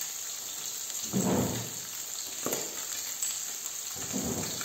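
Salmon trout fillets and garlic sizzling steadily in olive oil in two frying pans, with three short louder spells.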